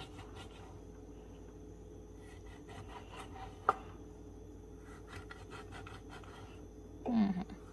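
Chef's knife slicing into the skin of a whole fish on a wooden cutting board: faint scraping, rubbing cuts, with one sharp tap about midway. A short vocal hum near the end.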